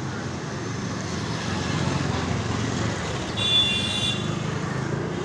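Steady road traffic noise, with a brief high-pitched tone a little past the middle.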